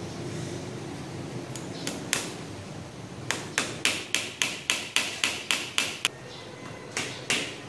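Rapid sharp taps of a small hammer driving a nail through an aluminium channel into a wooden block, about three to four blows a second. The hammering starts about three seconds in, stops briefly about six seconds in, and resumes near the end.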